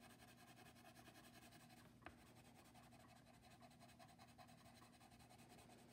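Faint scratching of a colored pencil shading back and forth on paper, over a low steady hum, with one light tick about two seconds in.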